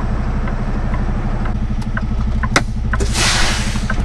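Kenworth T680's diesel engine idling steadily, heard inside the cab. About two and a half seconds in there is a sharp click, then a hiss of released air lasting about a second, typical of the truck's air brakes.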